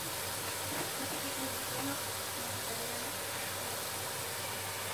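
Battered mushrooms frying in hot oil in a wok, giving a steady, even sizzle.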